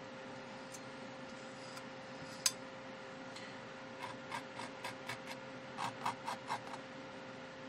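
Metal palette knife scraping over texture paste on a canvas board in a quick run of short strokes, about three a second, after a single sharp click. A faint steady hum sits underneath.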